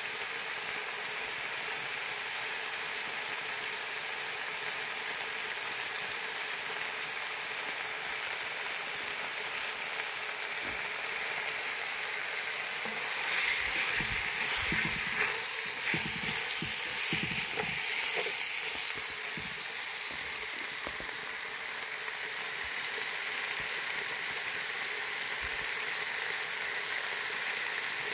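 Beef pieces, tomato and onion frying in a pan with a steady sizzle. About halfway through come a few seconds of louder knocks.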